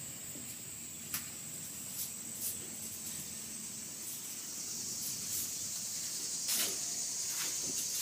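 Insects calling in a steady high-pitched drone that grows a little louder toward the end, with a few faint knocks.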